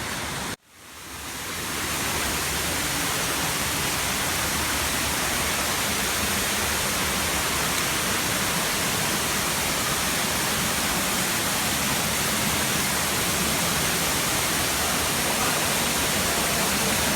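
Steady rushing of a waterfall. The sound drops out abruptly about half a second in, then swells back up over a second or so and holds steady.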